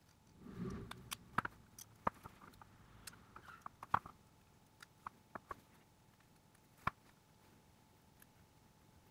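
Light clicks and taps of small hand tools and parts during smartphone repair work: a soft rustle near the start, then a dozen or so sharp single clicks scattered over the first seven seconds, the loudest about four seconds in and another near seven seconds.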